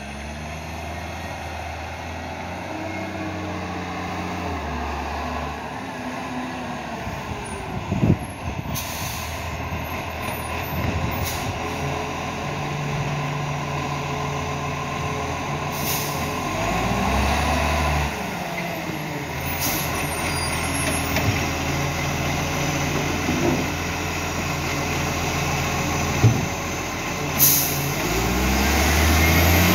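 Iveco ACCO side-loader garbage truck's diesel engine running and revving in steps while its Superior Pak hydraulic arm works, with short hisses of the air brakes and a few sharp knocks. It grows louder near the end as the truck comes close.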